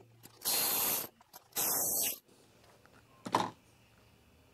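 Two short bursts of hiss, each about half a second long and a second apart, then a single short knock a little after three seconds in.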